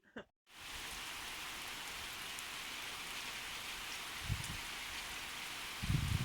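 Steady rain falling, an even hiss of rain on surfaces, setting in after a brief silent gap at the very start. A low rumble comes about four seconds in and again near the end.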